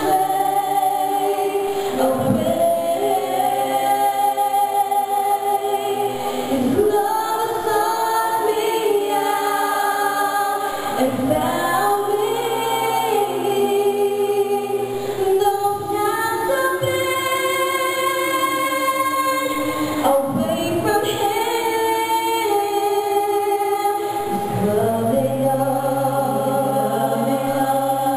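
Mixed choir of men's and women's voices singing a slow religious song into microphones, in long held chords that change every few seconds.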